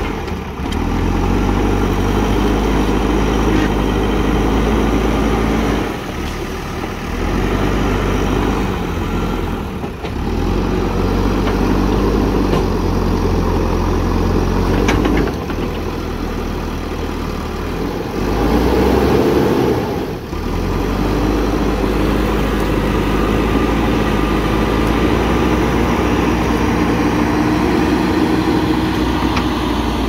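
JCB backhoe loader's diesel engine working under load as the front loader bucket pushes brush and roots, its engine note rising and falling several times.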